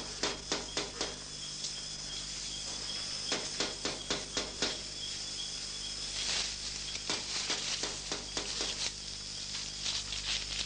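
Crickets chirring steadily, with irregular clicks scattered through and a constant low hum underneath.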